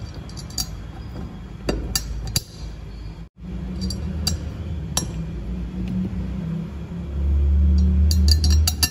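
Steel socket-head cap screws and an Allen key clinking against a steel flange as the screws are set and turned in by hand. Sharp metallic clicks come scattered through, with a quick cluster near the end, over a steady low hum that cuts out for a moment about a third of the way in.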